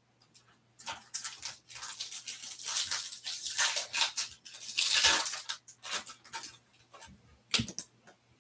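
Foil wrapper of a Topps Stadium Club Chrome trading-card pack crinkling and tearing open in irregular rustling bursts, followed near the end by a couple of short sharp clicks.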